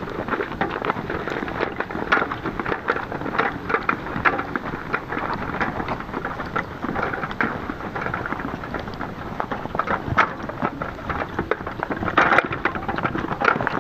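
Footsteps and the wheels of a hand cart loaded with a metal water can crunching over snow: a dense, irregular run of crackling clicks, with a louder clatter about twelve seconds in.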